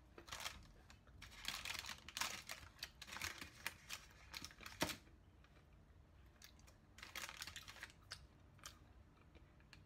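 Baking paper crinkling and rustling in short, irregular bursts as fingers pick up and shift sticky pieces of dodol on it, with a sharp click about halfway through.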